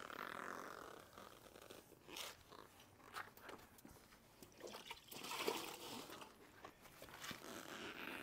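Damp sponge float wiped in repeated strokes across freshly grouted mosaic tiles, a faint wet rubbing swish. This is the clean-wash stage of grouting, taking the grout haze off the tile faces.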